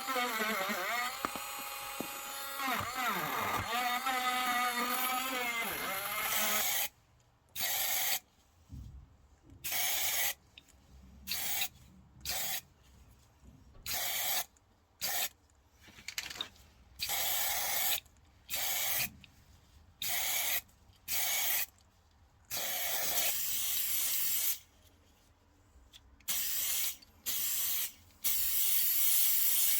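A small electric motor whining with a wavering pitch for the first several seconds, then stopping. After that, an aerosol spray can is fired in many short bursts of hiss, each lasting from half a second to about two seconds, with brief pauses between them.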